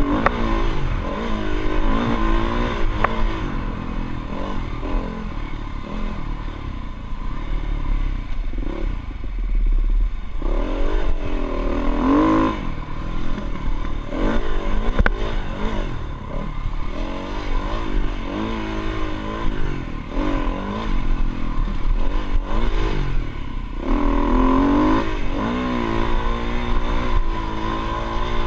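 Dirt bike engine under way, its revs rising and falling again and again as the throttle is worked, with some clattering.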